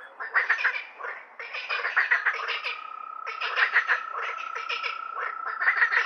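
Frogs croaking in a chorus: bursts of fast, rattling croaks follow one after another. A steady high-pitched trill runs underneath from about halfway.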